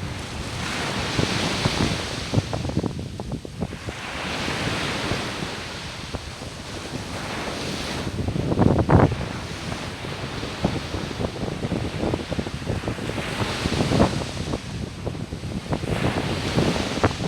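Sea waves breaking and washing up a beach, swelling and falling back every few seconds, with wind gusting on the microphone.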